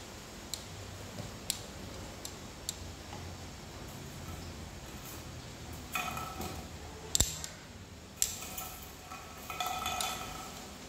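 Household objects being handled: a few faint ticks, then clattering knocks and clinks with short ringing, the sharpest knock about seven seconds in.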